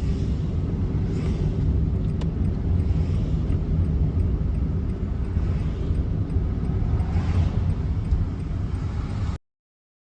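Steady low rumble of a car driving, its road and engine noise picked up by an in-car camera. The sound cuts off abruptly near the end.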